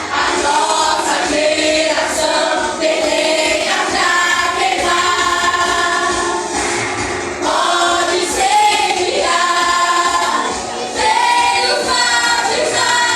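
Worship group singing a Christian praise song, several voices together with female voices prominent, over light accompaniment.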